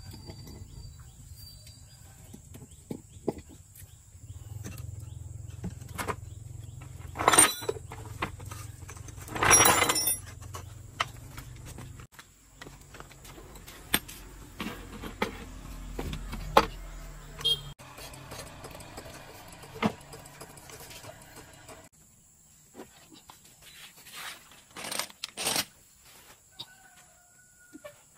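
Scattered clinks and knocks of work on metal, with two louder clattering bursts about seven and ten seconds in. A low hum runs under the first twelve seconds, then stops.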